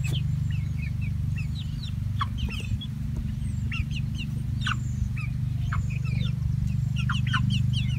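A flock of young chickens, about two months old, calling in many short, high peeps and cheeps, overlapping and scattered, over a steady low hum.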